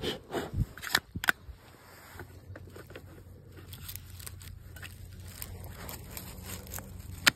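Hard plastic knocks and scrapes of a Makita-compatible battery pack being pushed onto a cordless mini chainsaw's battery mount. There are a few sharp knocks in the first second and a half, fainter scraping between, and another sharp click just before the end.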